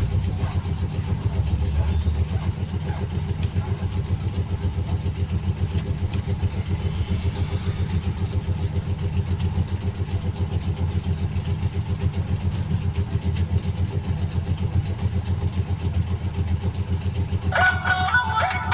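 An engine runs steadily, with an even, rapid low pulsing. Near the end a song starts playing from the phone's loudspeaker.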